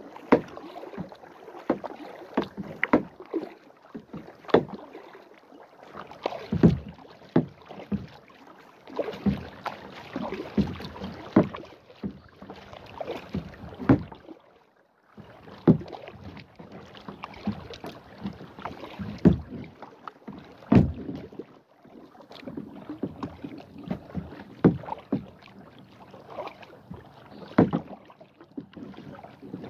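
Kayak paddling: the paddle blades dipping and splashing in the water, with drips and occasional sharp knocks, in an irregular run of strokes that pauses briefly about halfway.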